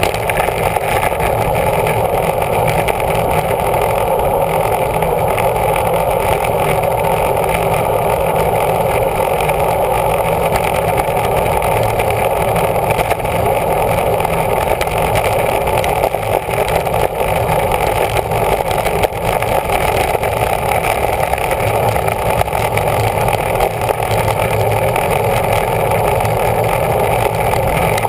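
Steady rushing wind on the microphone of a camera riding on a road bike at racing speed, about 20 to 30 mph.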